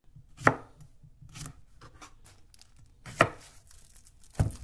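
Knife chopping through an English cucumber: three sharp cuts, about half a second in, just past three seconds and near the end, with fainter taps and rustling between, as the ends are trimmed off and the cucumber is cut to length.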